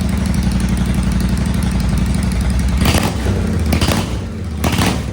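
Royal Enfield Continental GT 650's 648 cc parallel-twin running open, with its silencers removed, just after a cold start. It idles steadily, then takes a few quick throttle blips after about three seconds.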